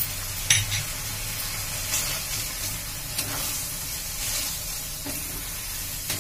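Maggi noodles and vegetable masala sizzling in a metal pan on a gas flame, a steady hiss, while a wooden spatula stirs them in with a few short scrapes against the pan.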